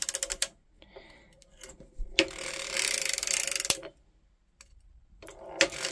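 Erlbacher Gearhart Speedster circular sock knitting machine cranked through heel passes: a fast, dense rattle of latch needles clicking through the cams. There is a short burst at the start, a longer one of about a second and a half in the middle, and another beginning near the end, with quiet gaps between them.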